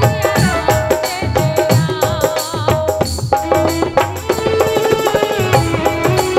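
Live Rajasthani devotional folk music: a fast, even hand-drum rhythm under a melody played on keyboard and saxophone, with notes that glide early on and are held long in the second half.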